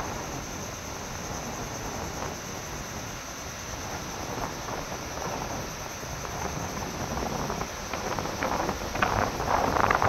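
Storm wind blowing over the microphone, mixed with the wash of a choppy sea; the gusts grow louder and more ragged near the end.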